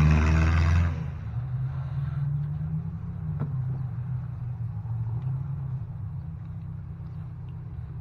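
A vehicle engine running close by. It drops off sharply about a second in, then carries on as a lower drone that slowly fades.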